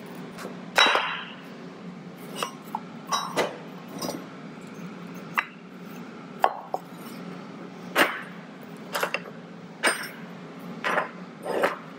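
Clinks and knocks of a welded steel form and a wooden block being handled and set down on a steel workbench: about a dozen separate, irregular hits.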